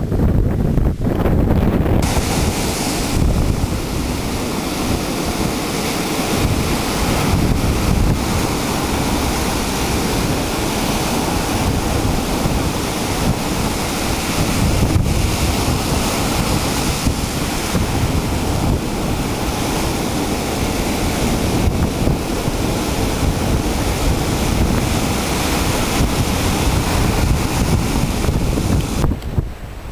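Ocean surf breaking and washing up the beach in a continuous rushing hiss, with wind buffeting the microphone as a low rumble. The hiss turns brighter about two seconds in.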